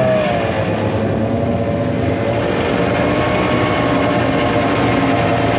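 Snowmobile engine running at speed, its pitch dipping slightly at the start and then holding steady.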